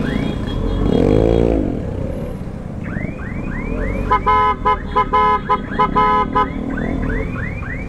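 Electronic horns or alarm-type sirens sounding during a scooter group ride: rapid repeated rising-and-falling chirps, then a run of pulsed beeping tones in the middle. Underneath is steady scooter engine and road noise, with a lower swooping tone about a second in.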